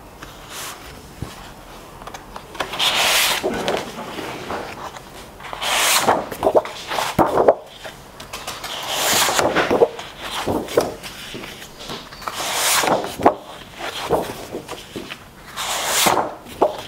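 Sheets of 12x12 cardstock slid one at a time across a fanned stack of card, making about five rubbing swishes of card on card a few seconds apart.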